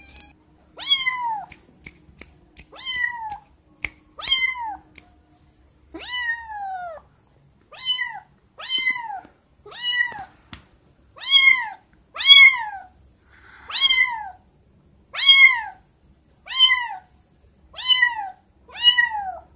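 A tabby kitten meowing over and over, about fourteen high calls that each fall in pitch, one every second or so: a kitten separated from its mother crying for her.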